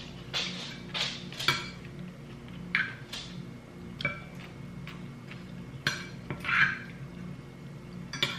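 Metal spoon and fork clinking and scraping against a ceramic dinner plate while eating, a string of separate short clinks, several with a brief ring.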